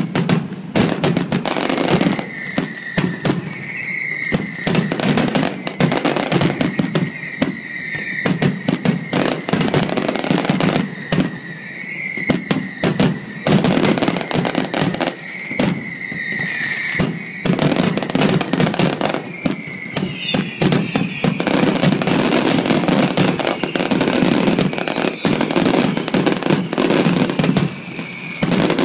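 Fireworks display going off in quick succession, a dense run of bangs and crackling stars, with a wavering high tone running underneath that swells every few seconds.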